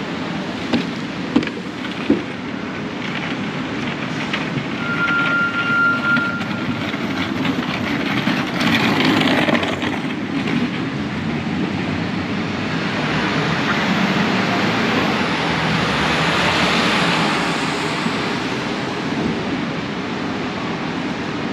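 Busy city street traffic: a steady wash of vehicle noise with a few sharp clicks in the first two seconds, a brief high tone around five seconds in, and louder vehicles passing about nine seconds in and again in the second half.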